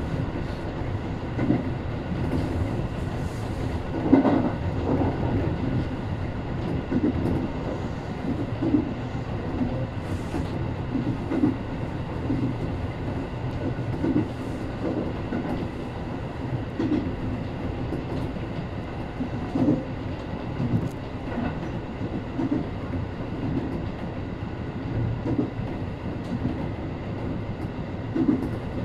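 Tobu 850 series electric train running, heard from inside the front car: a steady rumble of wheels and running gear with a faint steady whine, and clickety-clack knocks from the rail joints about once a second.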